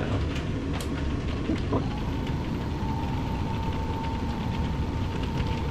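Electric motor of a TopSky adjustable standing desk running as the desk rises, a steady whine starting about two seconds in and holding on.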